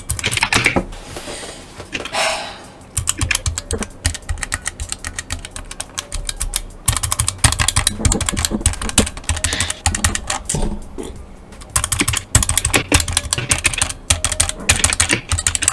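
Rapid typing on a mechanical keyboard fitted with Gateron optical switches: a dense run of keystroke clicks, broken by a few short pauses.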